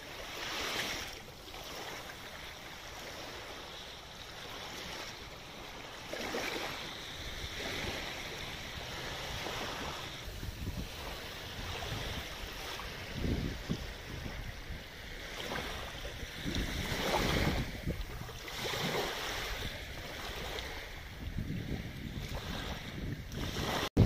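Sea surf washing onto the beach, swelling and ebbing, with wind gusting on the microphone.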